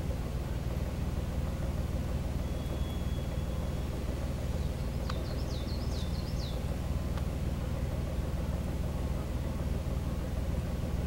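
Small river ferry's motor running steadily, a low even drone as it pushes the loaded ferry across. A short run of high chirps comes about five seconds in.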